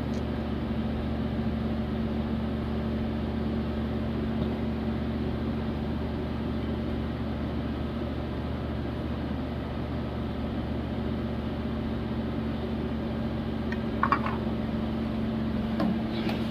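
Steady mechanical hum of commercial kitchen equipment, a motor or fan running with a constant low tone. A couple of brief faint clinks come near the end.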